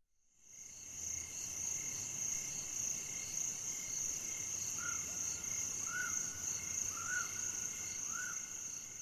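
Night chorus of insects, crickets among them, with a steady high-pitched trill that fades in over the first second. Four short arched chirps come about a second apart past the middle.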